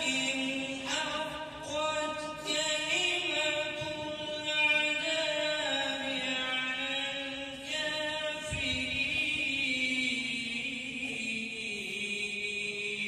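A man reciting the Quran in the melodic tilawat style, holding long, ornamented notes. Near the end he holds one long note that slowly falls before breaking off.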